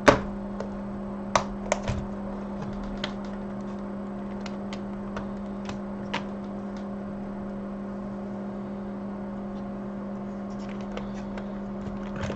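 A steady electrical hum from bench equipment, with a sharp click at the very start and a scatter of small clicks and taps of tools on a workbench, most of them in the first half.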